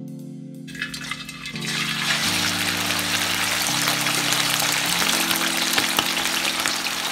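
Chicken pieces frying in hot oil in a wok. The sizzle starts about a second in and builds into a steady, dense crackle, over background music with sustained low notes.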